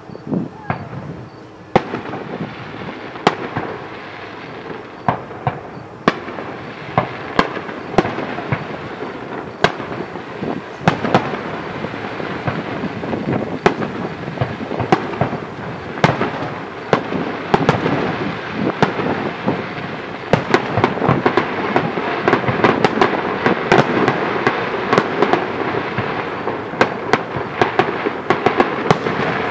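Fireworks display: many sharp bangs over continuous crackling, growing denser and louder over the second half.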